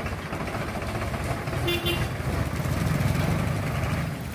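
A heavy vehicle engine running steadily, with a short horn toot just under two seconds in.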